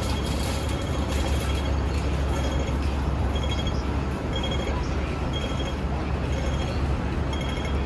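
Steady low rumble and noise of a vehicle in motion, heard from inside. A faint high beep repeats a little more often than once a second from a few seconds in.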